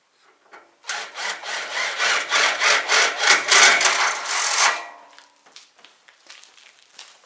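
Quick back-and-forth scraping strokes of a hand tool working a piece of material, starting about a second in and lasting about four seconds, with fainter scrapes afterwards.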